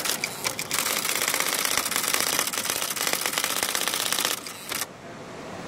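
Electric typewriter typing: a rapid, even stream of type strikes that stops near the end.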